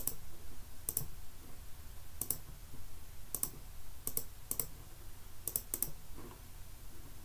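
Computer mouse button clicking several times at irregular intervals, each click a quick press-and-release pair, over a faint steady low hum.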